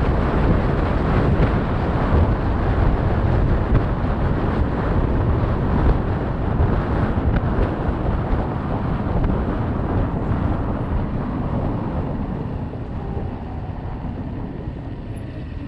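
Wind buffeting the microphone, with road and tyre noise, from a Super Soco TC Max electric motorcycle riding along. The noise fades over the last few seconds as the bike slows, and a faint whine falls in pitch near the end.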